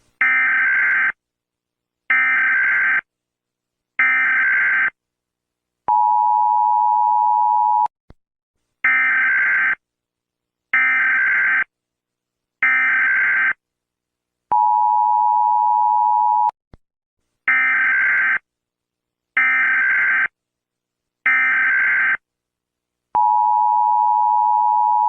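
US Emergency Alert System alarm: three harsh, screeching one-second digital data squeals of the SAME header about a second apart, then about two seconds of the steady two-note attention tone. The whole sequence plays three times.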